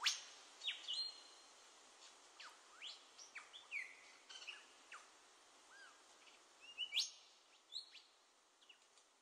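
Wild birds calling in eucalypt bushland: a run of quick chirps and short whistled notes sliding up and down in pitch, with two loud, sharp calls, one right at the start and one about seven seconds in.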